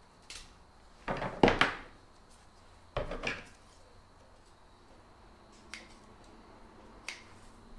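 Small metal hand cutting tools (cutters and scissors) clicking and clattering against a wooden table as they are handled. There is a loud cluster of clicks about a second and a half in, another at about three seconds, and a few lighter clicks later on.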